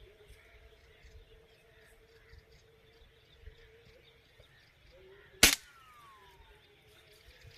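A single air rifle shot about five and a half seconds in, a sharp crack followed by a faint falling whistle.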